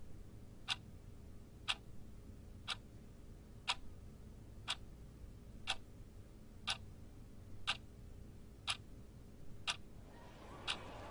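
Clock ticking steadily, one sharp tick a second. A hiss starts to swell about ten seconds in.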